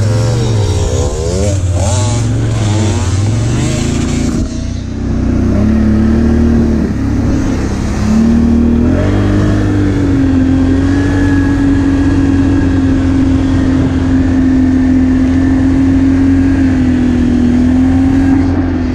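ATV engine heard from the rider's seat, pulling away with its pitch climbing in a few steps, then running steadily at trail speed. In the first few seconds a dirt bike engine close by revs quickly up and down.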